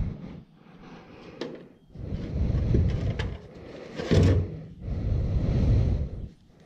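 Close handling noise as a small plastic oil sample bottle is capped and wiped with a shop towel: rubbing and a few light clicks, over low rumbling swells on the microphone.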